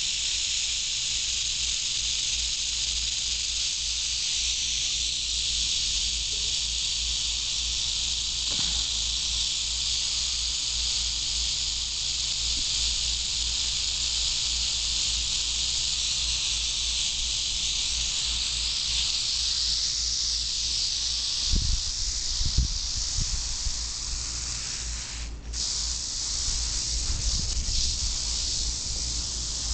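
Albino Western diamondback rattlesnake rattling its raised tail, a continuous high buzz that is the snake's defensive warning, breaking off for a moment near the end. A few low thumps sound about three-quarters of the way through.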